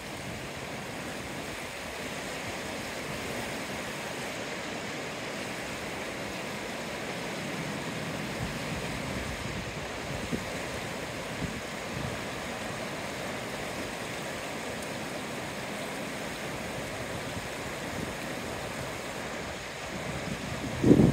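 Nenana River rushing steadily past the bank, an even, unbroken roar of fast water. A brief low rumble breaks in near the end.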